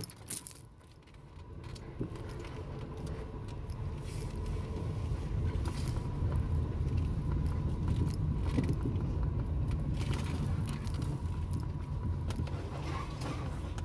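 Car driving slowly, heard from inside the cabin: a steady low engine and road rumble that grows louder about two seconds in, with occasional light clicks.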